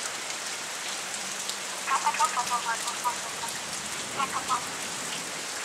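Steady rain hissing with scattered drops pattering close by, as a thunderstorm moves in; a faint voice is heard briefly in the middle.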